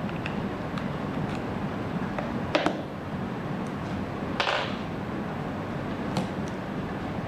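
Small handling clicks over steady room hum and hiss: a sharp double click about two and a half seconds in and a short scraping click about four and a half seconds in, as USB cables are plugged into a power bank to charge two devices at once.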